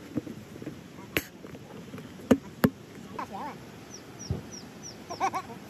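Sharp plastic clicks as the pull-out pour spout in the lid of a plastic oil pail is pulled up and snapped into place: four clicks over about three seconds, the last two loudest and close together.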